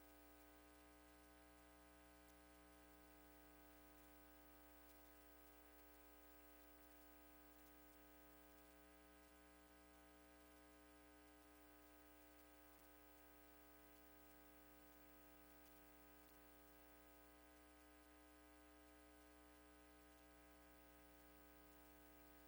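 Near silence, with only a faint, steady electrical hum and buzz.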